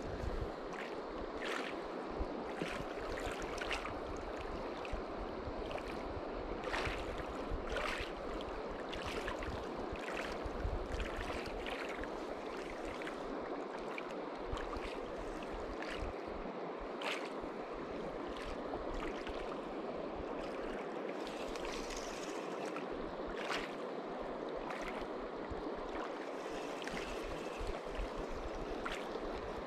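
Small river waves lapping on a gravel shore: a steady wash of water with frequent little splashes and ticks.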